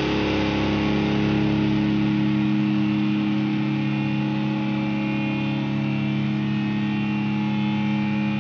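Electric guitar with distortion holding the song's final chord, several notes ringing steadily together, then cut off abruptly at the end.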